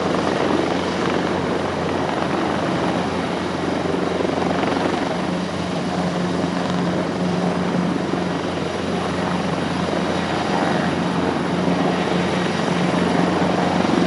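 Airbus EC225 Super Puma helicopter's twin turboshaft engines and rotor running steadily on the ground while it waits for takeoff clearance, with a constant low hum under the turbine and rotor noise.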